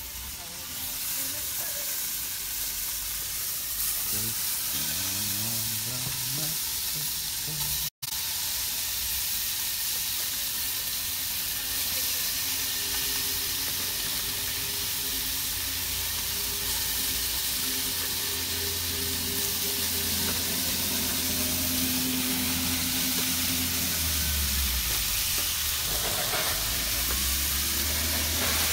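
Thick-cut chopped bacon frying and sizzling steadily on a propane gas cooker, with a brief audio dropout about eight seconds in.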